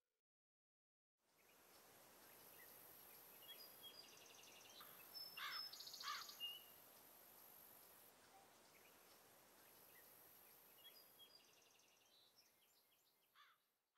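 Faint outdoor ambience: a low steady hiss with birds chirping now and then, a few louder chirps about five and six seconds in.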